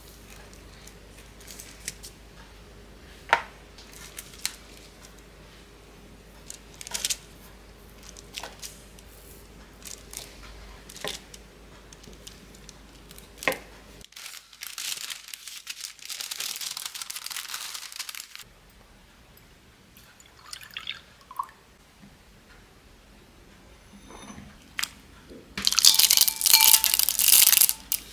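A kitchen knife cuts through a baked chocolate genoise sponge on a marble board, with scattered sharp knocks of the blade on the stone. About halfway there are a few seconds of rustling. Near the end comes the loudest sound, milk pouring into a glass bowl of dark chocolate chips.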